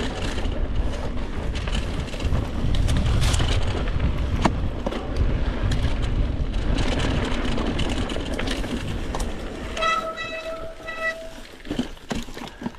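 Mountain bike rolling down a dry, stony dirt singletrack: steady tyre and wind noise with knocks and rattles from the bike. About ten seconds in, a short high beeping tone sounds three times in quick succession.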